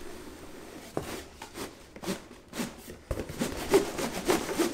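A cardboard box of flat-packed laundry-sorter parts being handled and tipped up: rustling, with a few sharp knocks and clicks, the busiest in the last second and a half.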